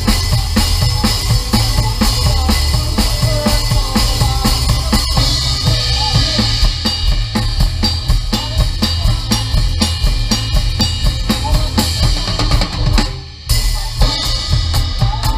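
Drum kit played with a band in a fast, steady beat. The music cuts out abruptly for a moment about thirteen seconds in, then comes back in.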